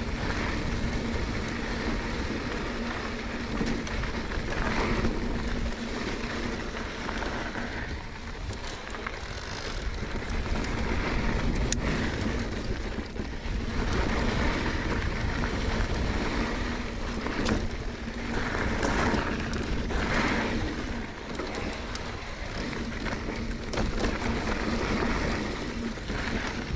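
Mountain bike riding downhill over rough trail: steady tyre and bike noise that swells and eases with the terrain, wind on the microphone, and a faint steady hum underneath.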